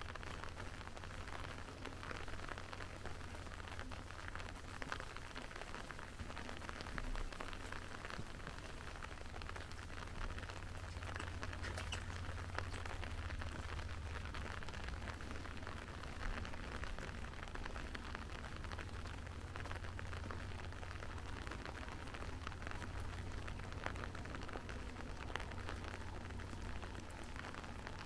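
Steady rain falling, with a dense patter of drops on hard surfaces and a steady low rumble beneath.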